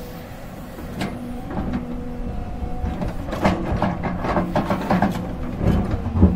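JCB JS205 tracked excavator's diesel engine running under hydraulic load as the bucket digs in rocky soil. A single knock comes about a second in, then from about three seconds in a run of knocks and scrapes from stones and earth against the bucket, the loudest near the end.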